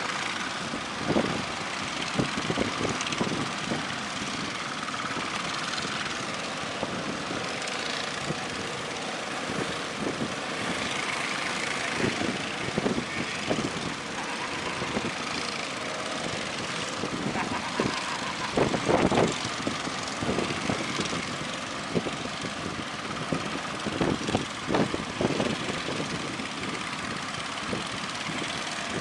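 Motorboat engines running steadily over a constant wash of surf and wind noise from the big waves, with irregular low thumps, the strongest about two-thirds of the way through.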